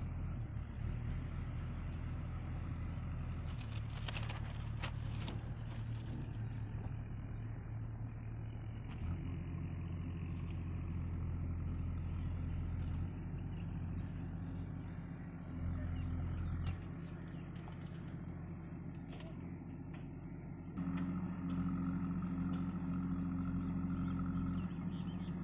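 JCB backhoe loader's diesel engine running as it works the earth, its note stepping up and down as the revs change. It is louder briefly about two-thirds of the way in and again over the last few seconds.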